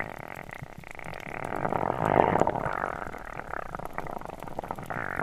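Water sloshing and bubbling, muffled as if heard through a camera in or at the water, swelling to its loudest a little past two seconds in.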